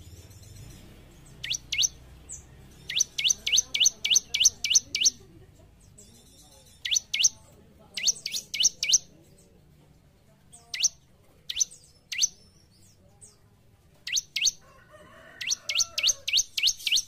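Bar-winged prinia (ciblek) singing: sharp downward-sweeping whistled notes, some single or in pairs and others in quick runs of about eight to ten, with faint high buzzy notes between them.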